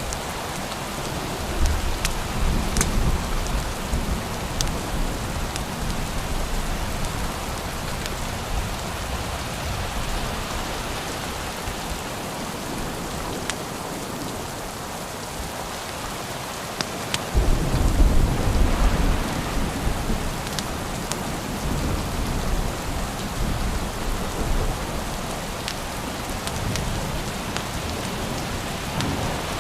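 Steady heavy rain with thunder rolling in twice, a deep rumble swelling about 2 seconds in and again, louder, about 17 seconds in. A few sharp clicks are scattered through it.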